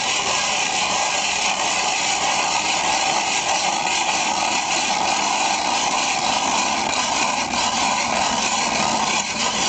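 StrikeMaster Lazer 6-inch hand ice auger being cranked into the ice, its blades shaving the ice with a steady scraping that stops about nine seconds in.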